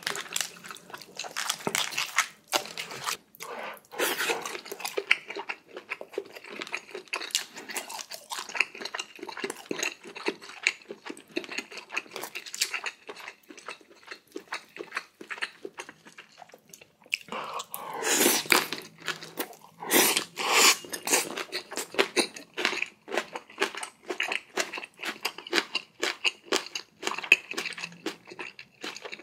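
Close-miked eating of spicy ramen with red crab, shrimp and kimchi: a steady run of wet chewing and crunching clicks, with louder, longer noisy stretches about 18 and 20 seconds in.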